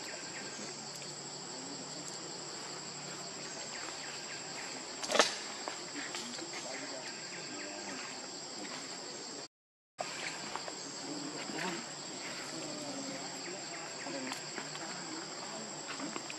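Steady, high-pitched drone of forest insects, with one sharp click about five seconds in. The sound drops out for a moment a little after halfway.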